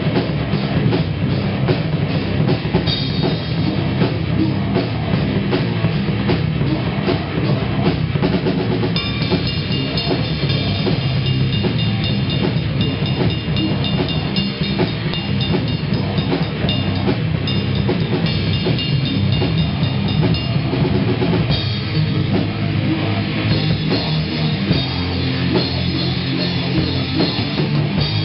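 A rock band playing loud and without a break, heard from right at the drum kit: drums and cymbals up front, with electric guitar underneath.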